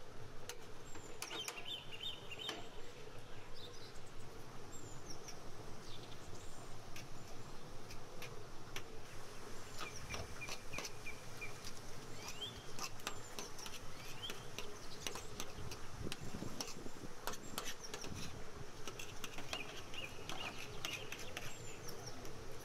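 Small birds chirping in short trills and insects buzzing, with many scattered clicks and clinks of forks scraping a metal tray as cooked chicken is shredded.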